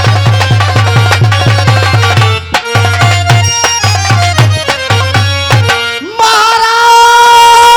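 Dhola folk music accompaniment: a drum is played in a fast, even beat of about five strokes a second, with a short break about two and a half seconds in. About six seconds in the drum drops out and a long held note takes over.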